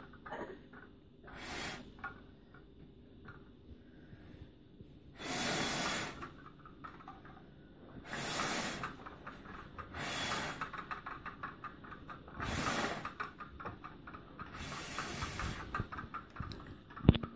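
A boy blowing hard at a plastic-bottle pinwheel to spin it, in about six separate puffs of breath with pauses between them.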